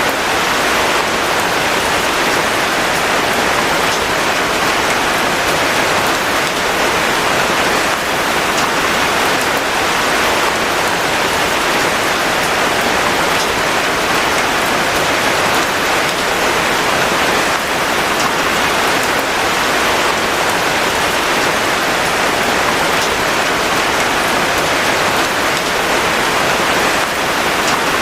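Steady rain falling, an even dense hiss with faint scattered drop ticks.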